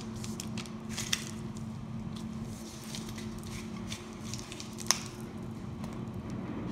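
Soft cookie dough squeezed from a piping bag onto parchment paper, with faint squishing and small clicks, and one sharper click a little before five seconds in, over a steady low hum.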